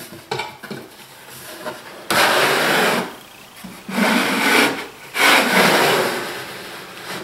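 Close-fitting wooden sliding lid rubbing along the grooves of a wooden box as it is pushed open and slid back shut, three scraping strokes, the last one longest and fading out.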